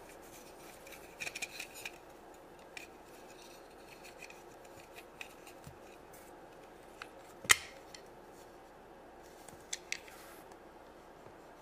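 Light clicks and rattles of a small hollow plastic toy pet carrier and flocked toy kittens being handled, with a sharper snap about seven and a half seconds in as the carrier's door is pushed shut, and two more small clicks around ten seconds in.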